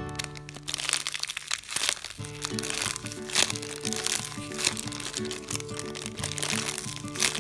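Clear plastic packaging crinkling and crackling as hands squeeze a foam squishy toy through the bag, with the sharpest crackles about three and a half seconds in and near the end. Background music plays throughout.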